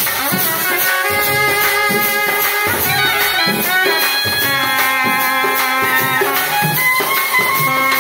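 A trumpet and a clarinet playing a melody together, live, over a rope-laced barrel drum keeping a steady beat.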